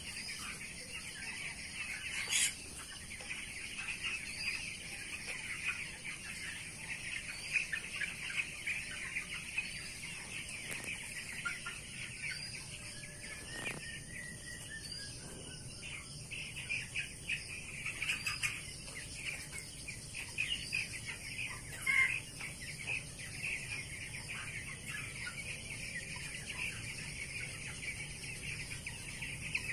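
A flock of fifteen-day-old broiler chicks peeping continuously, a dense overlapping mass of short high chirps. A single sharp knock sounds about two seconds in.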